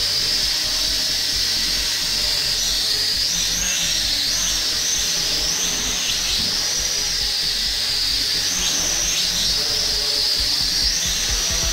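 Small toy quadcopter's motors and propellers whining in flight, with a high pitch that holds steady for about two seconds and then rises and falls over and over as the throttle changes.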